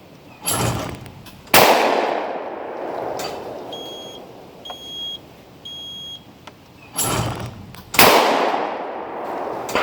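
Franchi Instinct SL Sport 12-gauge over-under shotgun fired twice, about six seconds apart, each shot echoing away. Each shot follows a weaker bang by about a second. Between the shots come three short high beeps about a second apart, the countdown of the trap's delay-mode release.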